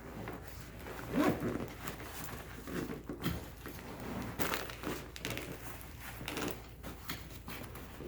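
Fabric and gear handling: irregular rustling, crinkling and small knocks as a paramotor harness pocket and reserve parachute are worked by hand, with a louder rustle about a second in.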